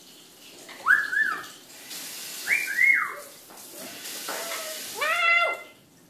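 Male eclectus parrot vocalising in a series of whistled calls that rise and fall in pitch: two quick pairs, a short lower note, then a fuller, louder call near the end.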